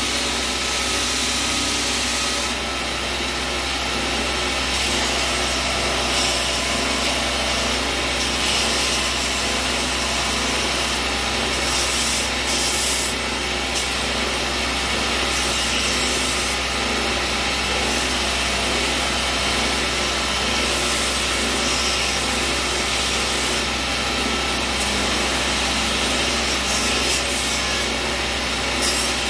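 Belt grinders running while steel billhook blades are ground against the abrasive belt: a steady grinding rasp over a constant motor hum.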